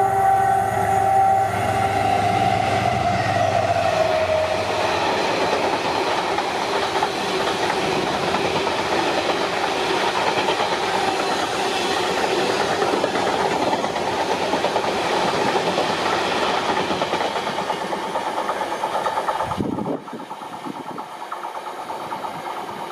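A train's horn sounds one long note whose pitch drops as the train rushes past, followed by the loud rumble and clatter of the train running by on the track. Near the end the sound drops suddenly to a quieter steady hiss.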